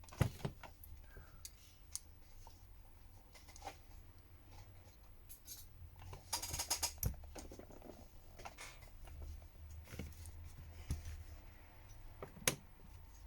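Small plastic and metal clicks, taps and a brief scrape as the parts of a smartphone are handled and fitted into its frame during reassembly. The clicks are scattered and irregular, with a short cluster of scraping a little after six seconds in and a sharp click near the end, over a faint steady low hum.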